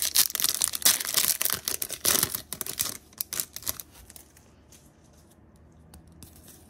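Foil Yu-Gi-Oh! booster pack wrapper being torn open and crinkled for about three seconds, followed by a few light clicks and rustles as the cards are slid out, then it goes quiet.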